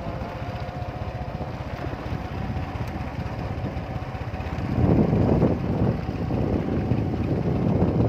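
A moving vehicle's engine and wind buffeting the microphone: a steady low rumble that grows louder and rougher about five seconds in.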